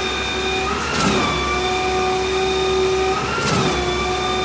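Concrete pump at a pour, its engine running steadily with a sharp knock about every two and a half seconds, each followed by a brief swell in pitch as the pump strokes.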